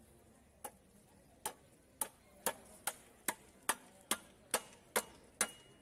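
Rapid, evenly spaced chopping strikes, about two a second, starting about half a second in: a blade cutting through a large catla fish on a cutting block.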